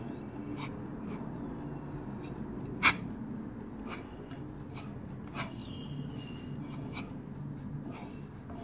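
Model steam engine built from castings, running slowly on compressed air: a steady chuff from its cylinder exhaust, with an occasional sharp click.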